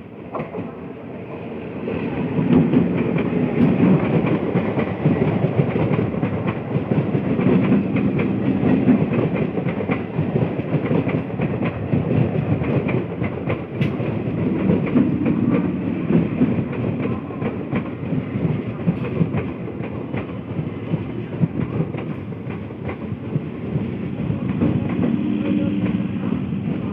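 An Indian Railways electric multiple unit (EMU) local train runs in alongside the platform, getting loud about two seconds in. Its wheels rumble steadily on the rails, with rapid clickety-clack clicks as the coaches roll over the rail joints.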